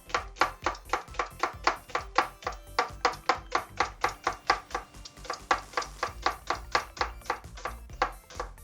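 Kitchen knife chopping leek on a chopping board: a steady, rapid run of sharp strokes, about four a second.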